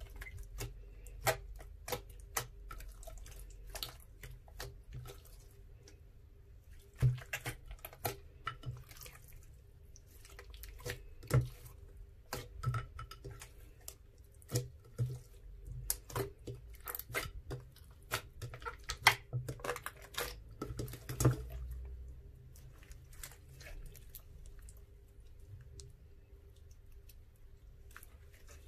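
Glossy black slime squeezed and pressed by hand in a glass dish, giving irregular wet clicks and pops. They come thickest through the middle and thin out near the end.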